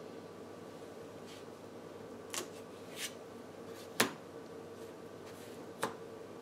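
Trading cards handled and set down on a playmat over a wooden table: four short taps, the sharpest about four seconds in, over a faint steady hum.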